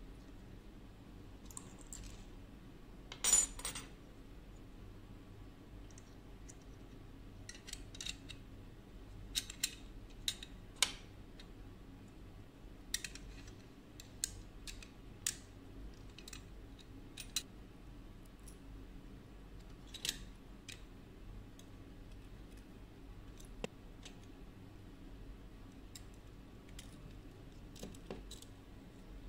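Scattered light clicks and small clatters of plastic model-car parts being pried loose, handled and set down, the loudest rattle about three seconds in. A faint steady hum lies underneath.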